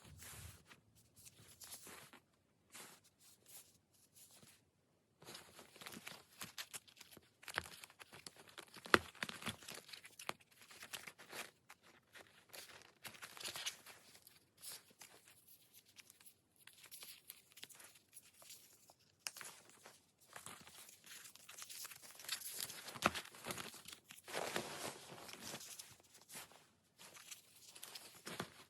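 Paper and plastic sticker sheets rustling and crinkling as stickers are peeled and handled, in irregular bursts of crackles and light clicks with a few short pauses.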